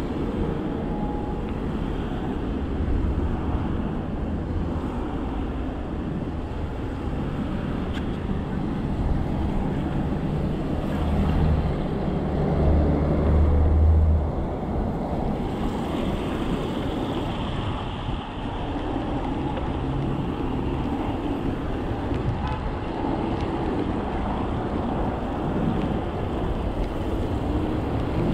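Wind rushing over the microphone of a moving bicycle, with steady road noise underneath. The low rumble swells for a few seconds a little before halfway.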